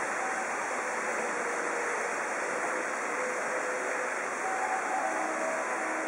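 A steady rushing noise that holds an even level throughout, with a few faint, brief tones in the second half.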